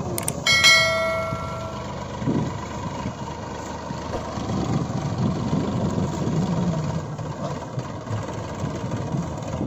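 Tractor engine sound running steadily. Near the start, two mouse-like clicks are followed by a bright bell-like notification chime from a subscribe-button animation, ringing out and fading over about a second.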